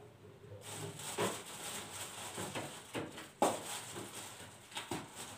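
Kitchen handling noises while peppers are fetched: rustling with a few light knocks and clicks, and one sharper knock about three and a half seconds in.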